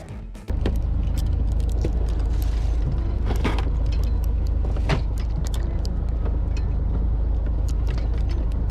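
Fishing boat's engine rumbling steadily, with scattered light clicks and rattles of gear on board.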